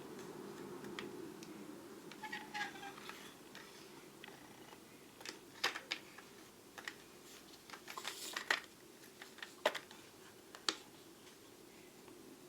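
Scattered small clicks and taps of metal lathe cutting tools being handled and set down in a toolbox drawer, with a few sharper knocks in the second half.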